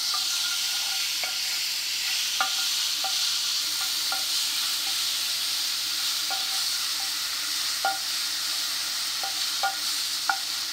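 Garlic and sofrito sizzling steadily in hot oil in a skillet, with irregular light taps as a wooden spoon stirs against the pan.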